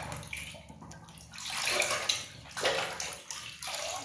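Water sloshing and splashing as a hand swishes a toy around under the water of a plastic basin to wash it, in uneven swells.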